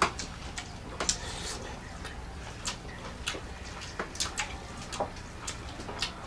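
Close-miked eating sounds of people eating rice and meat by hand: irregular sharp clicks and smacks of chewing and of fingers working rice on steel plates, over a low steady hum.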